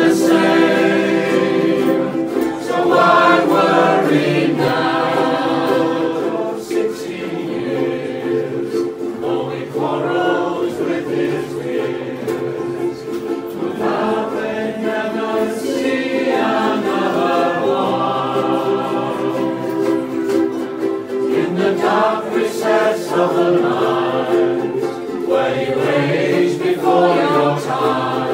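A ukulele band strumming many ukuleles together while the players sing as a group, playing a song continuously.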